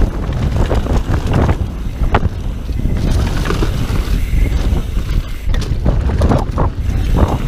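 Downhill mountain bike rolling fast over a dirt and leaf trail: tyre noise with frequent sharp rattles and knocks from the bike over bumps, under a steady low rumble of wind on the camera's microphone.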